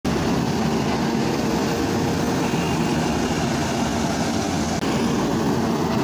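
Volvo EC210B excavator's six-cylinder diesel engine running steadily under working load while the machine digs, with a steady low hum from the machinery.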